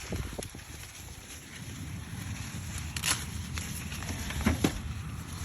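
Corn stalks and dry leaves rustling and crackling as people move through the rows picking ears, with a few sharper cracks around three and four and a half seconds in.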